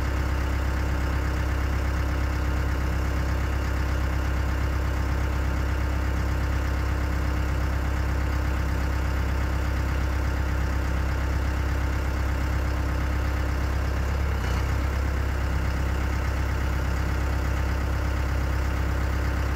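SkyTrak 10054 telehandler's diesel engine running steadily at idle, with a brief dip in its note about three quarters of the way through.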